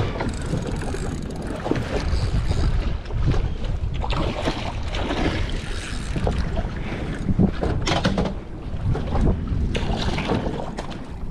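Wind buffeting the microphone and water washing along the hull of a small offshore fishing boat, with scattered short knocks and clicks from a spinning rod and reel as a fish is reeled in.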